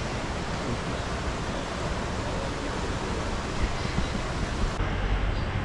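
Steady, even rushing noise with no distinct events. About five seconds in it cuts abruptly to a low, steady engine hum.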